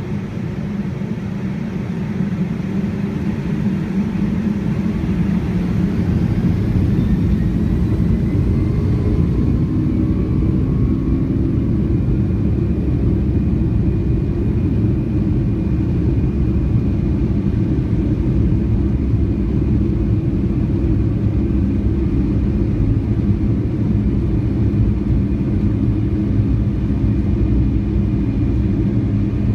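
Boeing 757-200's jet engines spooling up, heard from inside the passenger cabin: a whine that rises in pitch while the rumble grows louder over the first several seconds, then a steady loud rumble.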